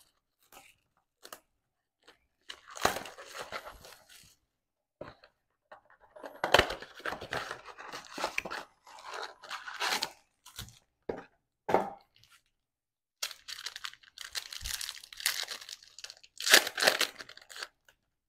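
Cardboard trading-card blaster box being torn open by hand and the plastic-wrapped stack of cards pulled out: irregular bouts of tearing and crinkling with short pauses between them, loudest about six seconds in and again near the end.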